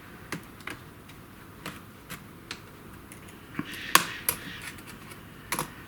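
Plastic snap clips of a laptop's casing clicking as they pop undone while the shell is pried apart with a wooden stick. There are several separate sharp clicks, the loudest about four seconds in.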